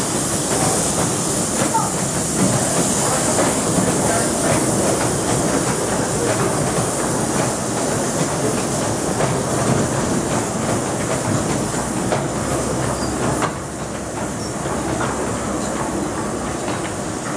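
Miniature steam railway train pulling away: the small 2-6-2 steam locomotive hisses steam as it starts. Then a long rake of open passenger carriages rolls past with a steady clickety-clack of wheels over rail joints, a little quieter after about thirteen seconds.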